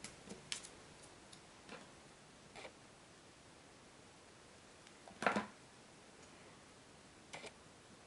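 A few faint, scattered clicks and taps of hands handling paper embellishments and a small glue bottle on a wooden tabletop, with one louder knock about five seconds in.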